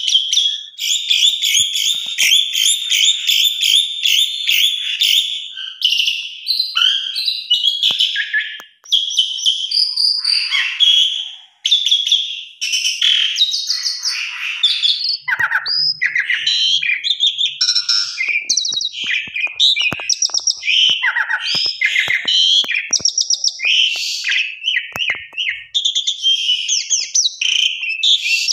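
Asian pied starling singing a long, varied song of fast chattering trills and whistles, opening with a rapid repeated chatter for about six seconds before breaking into changing phrases.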